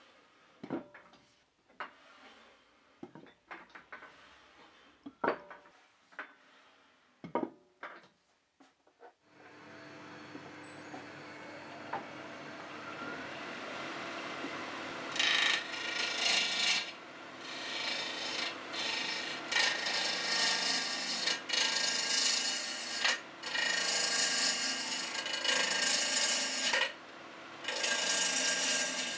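A few sharp wooden knocks and clicks as segmented wood rings are handled, then a wood lathe starts about nine seconds in and runs steadily. From about fifteen seconds a turning gouge cuts the spinning segmented wood blank in loud scraping passes, each a few seconds long with short breaks between.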